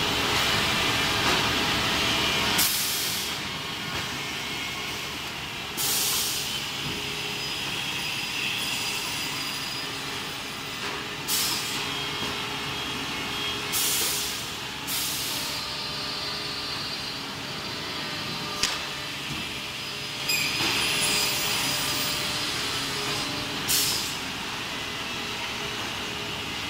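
Woodworking factory machinery running steadily, with short bursts of air hiss every few seconds, about seven in all.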